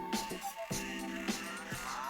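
Background music with a steady beat: sustained chords over regular drum hits, with rising synth sweeps near the end.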